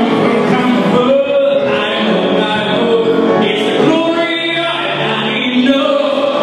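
A man singing into a handheld microphone with upright piano accompaniment, holding long notes that slide in pitch.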